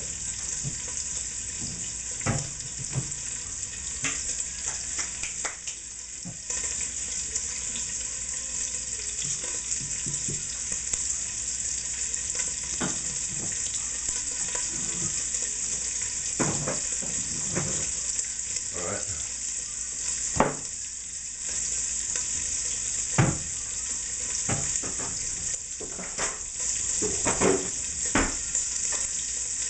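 Bacon and bacon fat frying in a pot, a steady sizzle. Scattered knocks and clatter of kitchen utensils and jars being handled stand out over it, several clustered near the end.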